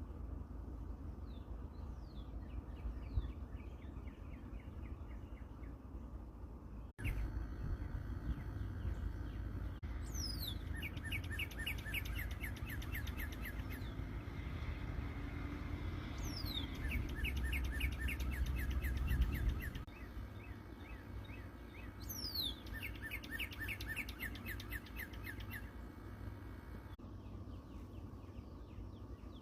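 A songbird singing three song phrases a few seconds apart, each opening with a steeply falling high whistle and running into a fast trill of short notes. Fainter bird calls come before them, over a low rumble that drops away about two-thirds of the way through.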